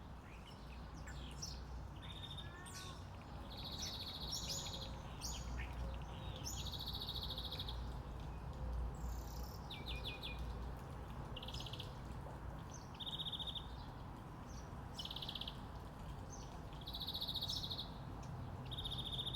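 Several wild birds calling and singing, with short buzzy trills repeating every second or two among higher chirps, over a steady low background rumble.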